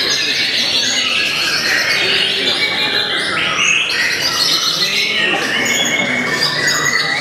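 White-rumped shamas (murai batu) singing: a dense, continuous stream of loud, rapid, varied whistled phrases, with several birds singing at once.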